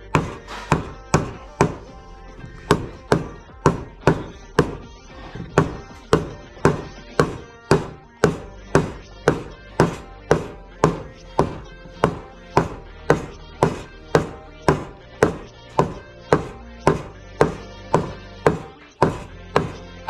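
Hammer tapping a new bearing into the rear bearing housing of a washing machine's plastic outer tub, striking the old bearing that is being used as a drift. About two sharp, ringing metal-on-metal blows a second, with a short pause about two seconds in, drive the bearing home until it seats.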